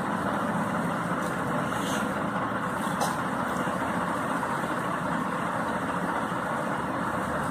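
Steady background rumble and hiss, with a faint tap about three seconds in.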